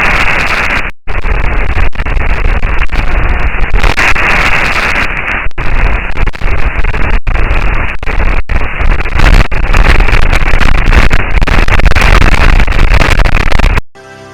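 Harsh, crackling noise picked up by a microphone on the Perseverance rover on Mars, broken by a few very brief dropouts and cutting off suddenly near the end.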